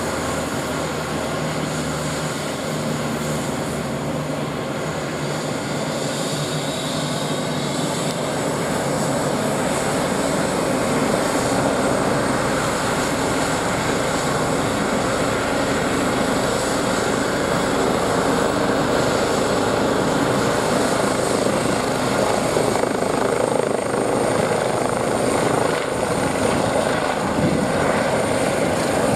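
Airbus EC135 helicopter's twin turbine engines and rotors running, the rotor noise building about a third of the way in as it comes up to take-off power, with a high turbine whine that strengthens near the end as it lifts into a hover.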